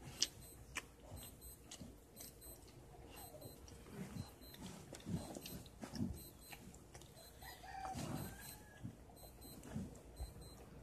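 Mother dog licking and nuzzling her newborn puppy: wet licking and smacking clicks, with a brief faint squeak from the puppy about eight seconds in.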